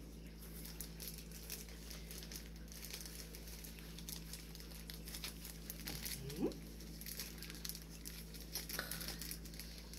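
Plastic packaging of a diamond painting kit crinkling softly as it is handled and turned over, with a brief rising tone about six and a half seconds in.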